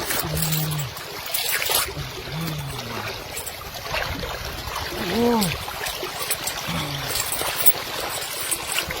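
Water trickling and splashing, with scattered small knocks and a few short voice sounds in between.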